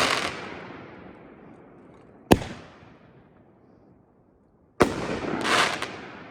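Aerial fireworks cake firing shots: a sharp bang about two seconds in, then another near five seconds followed by a hissing, noisy tail that swells and fades, with the tail of an earlier shot dying away at the start.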